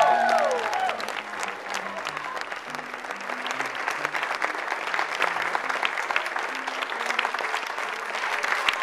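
Audience and cast applauding, a dense steady clapping, with music playing softly underneath.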